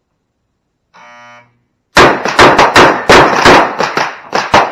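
Shot-timer start beep, one steady electronic tone for about half a second, signalling the start of the run. About half a second later a rapid string of pistol shots begins, roughly three to four a second, that runs on to the end.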